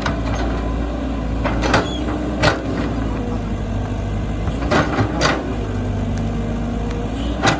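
Tracked hydraulic excavator's diesel engine running steadily as it digs earth and tree roots, with about five sharp knocks and clanks from the bucket and arm spread through the digging.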